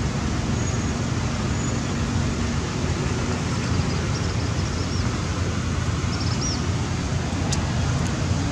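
Steady low rumbling outdoor noise, with a few faint high chirps about four and six seconds in and a brief click near the end.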